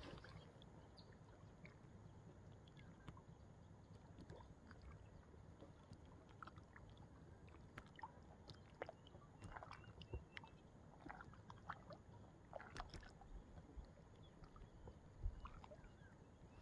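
Near silence: faint lapping of water at a rocky lake edge, with scattered small clicks and ticks.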